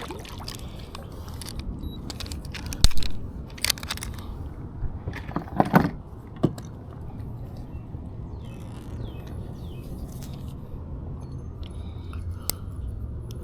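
Handling noises: a few sharp clicks and knocks, the loudest about six seconds in, over a steady low rumble.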